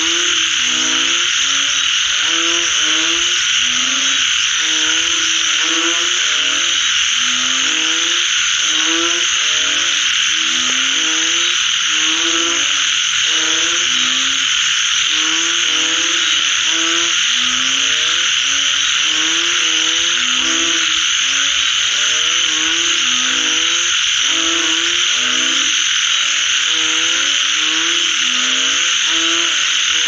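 A chorus of many frogs calling after rain: short low croaks repeated rapidly and overlapping from several frogs, over a dense, steady high-pitched chorus.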